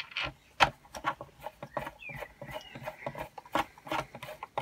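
Hand screwdriver driving a screw through a panel of an R2-D2 foot assembly into a captive nut: a run of small clicks and scrapes as the screw turns and the parts shift, with a brief squeak about two seconds in.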